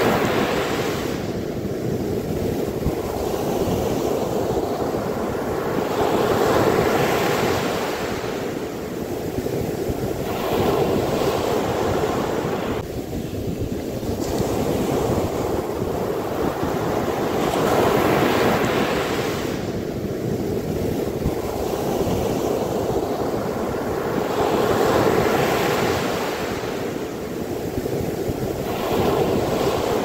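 Sea waves breaking and washing up over a sandy beach, the surf swelling and fading every several seconds.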